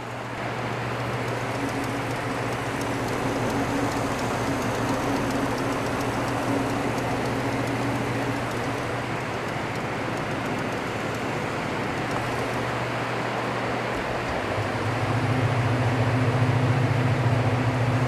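The 1933 Frigidaire's refrigeration condensing unit, a compressor driven by a repulsion-induction motor, running steadily under its refrigerant charge with a low electric hum over a steady hiss of rain. The hum grows louder near the end.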